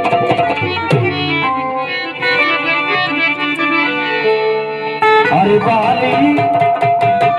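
Instrumental interlude of a bhajan: an electronic keyboard plays a melody over sustained organ-like chords, with drum hits.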